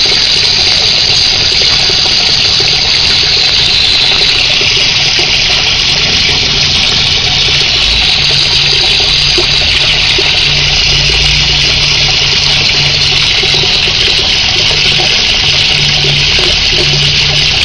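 Steady, loud rush of running water, with a faint low hum coming and going underneath.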